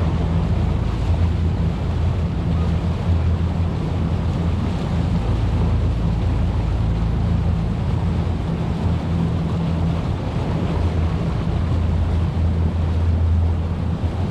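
Boat motor running steadily with a constant low drone, under heavy wind noise on the microphone.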